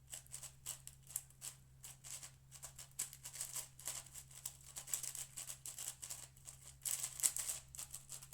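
6x6 speed cube (Cosmic Shadow M) being turned fast during a solve: rapid, irregular flurries of plastic clicking and clacking as the layers turn, with short pauses between runs of moves.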